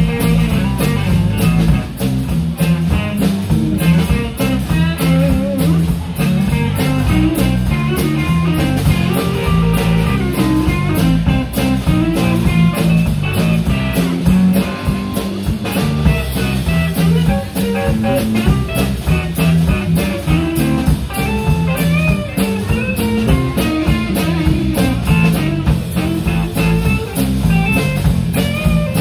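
Live blues band playing: electric guitar lead over bass guitar and a drum kit keeping a steady beat.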